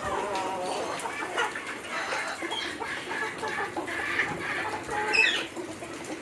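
Chickens clucking, many short overlapping calls, with one louder, higher call about five seconds in.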